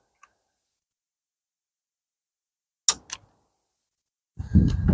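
Two sharp plastic clicks about three seconds in, a quarter of a second apart, as the door-handle cable is fitted onto a replacement car door lock module, with a faint tick just before and handling noise near the end.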